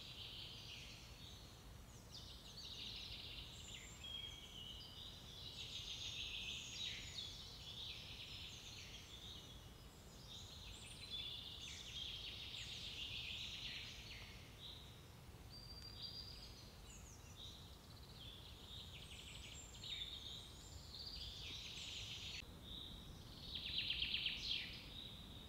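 Several songbirds singing at once in woodland, an overlapping tangle of chirps, trills and whistles with a quick, louder run of notes near the end. A faint low rumble runs underneath.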